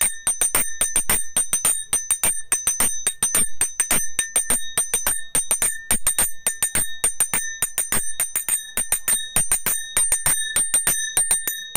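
A pair of brass mandira (juri) hand cymbals struck together in a fast, steady rhythm, several clear ringing strikes a second: the 'double', quicker playing of kaharba taal, with strokes held and damped and others released to ring.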